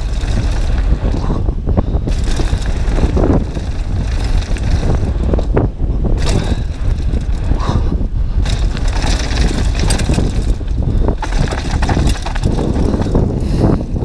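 Mountain bike descending a gravel downhill trail, with tyres crunching over loose stones and the bike rattling over bumps. Wind rushes against the action camera's microphone.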